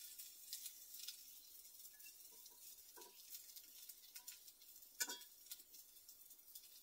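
Faint sizzling of Spam and potatoes frying in a pan over a small wood fire, with a few light clicks and crackles; the clearest clicks come about three and five seconds in.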